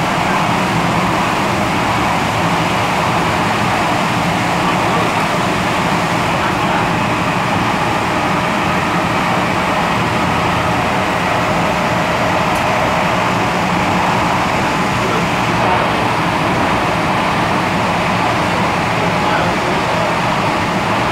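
MTR M-Train electric multiple unit running at speed between stations, heard inside the car: a steady, loud rumble of wheels on rail and traction equipment, with a constant low hum.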